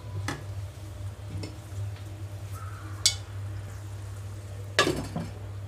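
Bottle gourd curry sizzling gently in a nonstick kadai over a low steady hum, with a few sharp clinks of metal and glass. A louder clatter near the end comes as a glass lid is set on the pan.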